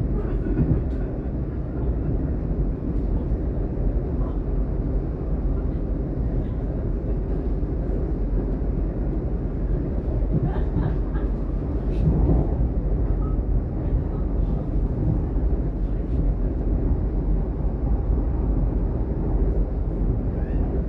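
Interior running noise of a DB Class 422 (Alstom/Bombardier) electric multiple unit travelling between stations: a steady low rumble of wheels on rails and running gear, with a few faint clicks and squeaks about halfway through.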